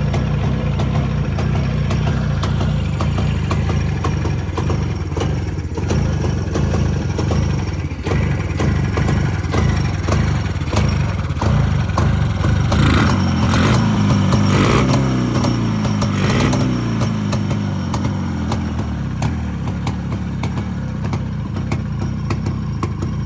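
Jawa 350 type 354 two-stroke twin engine idling steadily, blipped three times around the middle so the revs rise and fall, then settling back to idle.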